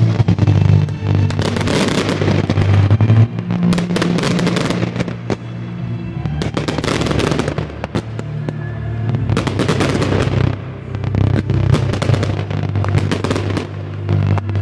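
Fireworks display: shells bursting in rapid, overlapping bangs with crackling, over steady low music.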